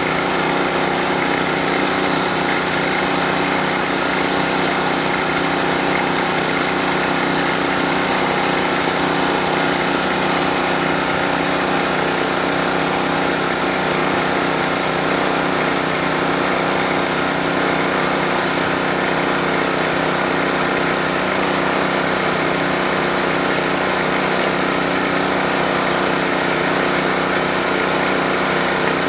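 Small engine of a machine well-drilling rig running steadily at a constant speed, with no change in pitch or load.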